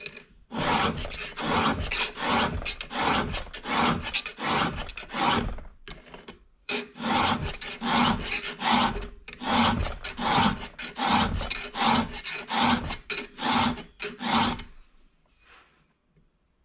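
Hand file scraping across the cutters of a Stihl chainsaw chain during sharpening, in short even strokes about two a second. There is a brief break about six seconds in, and the filing stops about fifteen seconds in.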